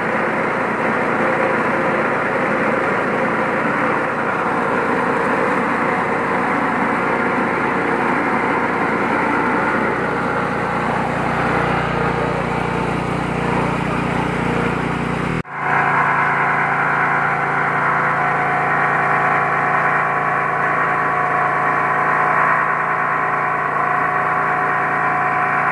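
KD 580 WG Pro mini rice mill running steadily while it mills paddy, its vibrating hopper feeding the grain. After a break about 15 seconds in, the running noise turns to a steadier, more even hum.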